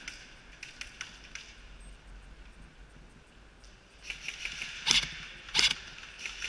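Light scattered clicks and footfalls, then two loud short bursts of airsoft gunfire about half a second apart near the end.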